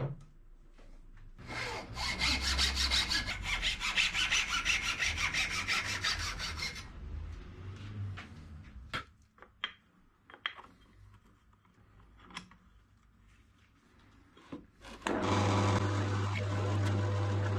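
Hacksaw cutting through a wooden dowel clamped in a bench vise, in rapid, even back-and-forth strokes for about five seconds. Scattered knocks and clicks of handling follow, then about fifteen seconds in a drill press motor starts and runs with a steady hum.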